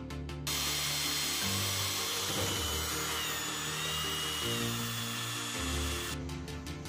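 Electric drill spinning a paddle mixer in a gallon can of paint: a steady whirring whine that starts about half a second in and stops shortly before the end, over background music.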